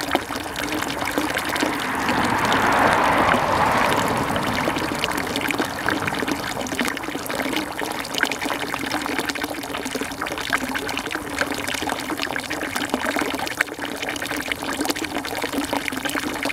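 Steady rushing, trickling water, swelling louder for a couple of seconds about two seconds in.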